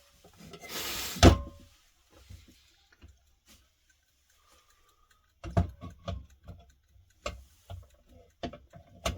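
Knocks and clunks from a Blick time recorder's parts being fitted back into the clock case, with a brief scrape and a loud knock about a second in, then a run of taps and knocks from about halfway.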